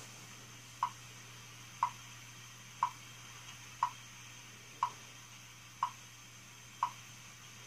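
WWV's 5 MHz time signal received on a Hallicrafters S-38 shortwave receiver: the station's seconds ticks, seven short clicks at a steady one per second, over a faint low hum and hiss.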